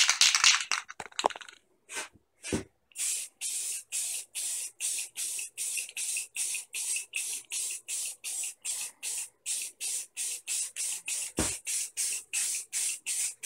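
Aerosol spray-paint can spraying black paint onto PVC pipe in short, rapid hissing bursts, about three a second, with a couple of brief low knocks in between.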